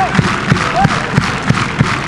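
Football supporters' crowd noise from a packed stand, carried by a steady beat of loud thumps about three times a second.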